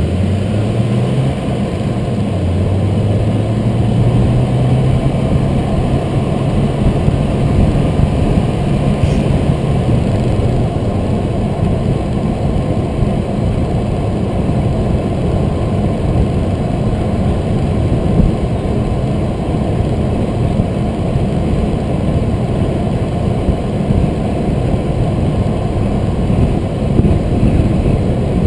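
Car driving, heard from the car itself: the engine note rises, drops back and rises again as it pulls away through an intersection, then fades into steady road and tyre noise at cruising speed.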